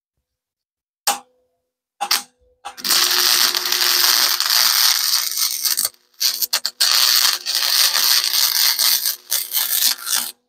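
Electric power tool running under load, a steady motor hum under a loud high hiss. Two brief blips, then it runs for about three seconds, stops briefly around six seconds in, and runs again until near the end.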